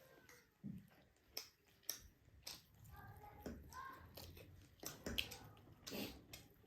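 Faint eating sounds: chewing and biting, with several short sharp clicks scattered through.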